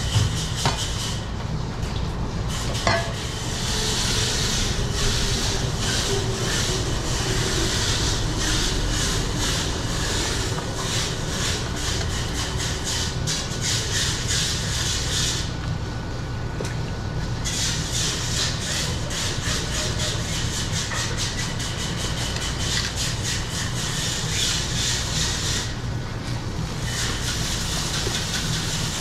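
Long knife cutting through a yellowfin tuna loin on a plastic cutting board, in long runs of rapid scraping that pause about halfway through and again near the end. A steady low hum runs underneath.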